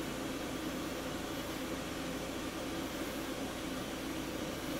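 Glassworking bench torch burning with a steady rushing noise.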